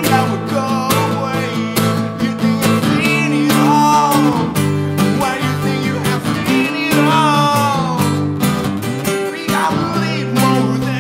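Two acoustic guitars strummed together in a live song, with a male voice singing a line about three seconds in and another around seven seconds.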